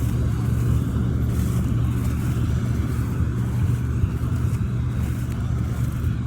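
An engine running steadily with a deep, even hum and no change in speed.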